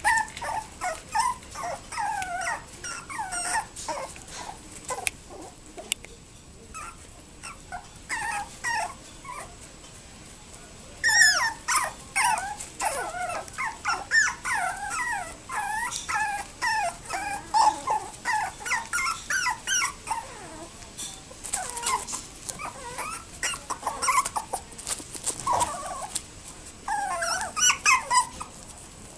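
Two-month-old toy poodle puppies whimpering and yipping in quick strings of short, high, bending cries. The cries come in bouts, with a quieter stretch a few seconds in.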